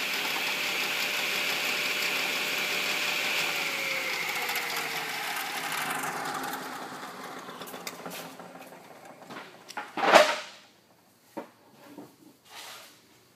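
Table saw motor running steadily, then switched off: its pitch falls as the blade coasts down, and the running noise fades out. About ten seconds in there is one loud knock, followed by a few lighter knocks.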